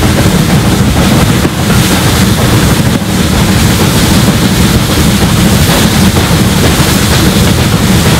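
Rebuilt SR Merchant Navy class 4-6-2 No. 35028 'Clan Line', a three-cylinder steam locomotive, working hard up a 1 in 60 gradient: a loud, rapid, unbroken exhaust beat, heard from an open carriage window.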